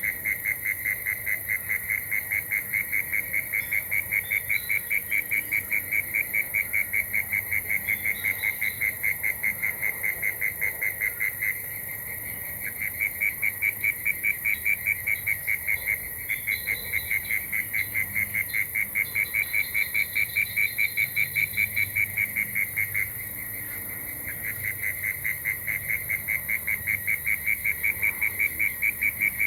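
A ticking frog calling in a long, fast, even run of ticks, breaking off twice briefly before starting again, over a steady high insect hiss.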